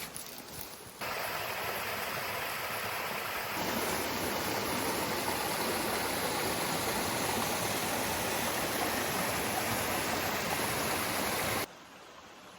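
Creek water rushing steadily over a small cascade. It starts abruptly about a second in, grows fuller a few seconds later and cuts off suddenly near the end.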